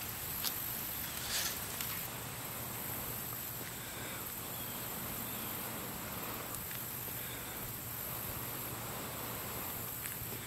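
Steady high-pitched insect chorus with soft, even blowing into a smouldering tinder bundle to coax the ember into flame. Two brief clicks sound in the first couple of seconds.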